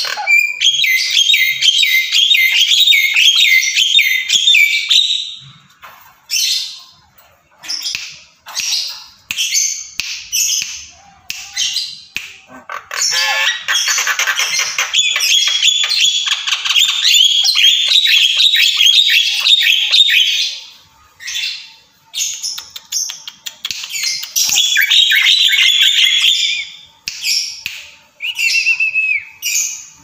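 Javan myna chattering: three long runs of harsh, scratchy calls with shorter calls in between, and a short falling whistled note near the end.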